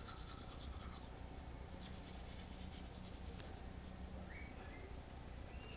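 Manual toothbrush scrubbing teeth: a faint, irregular scratching of bristles.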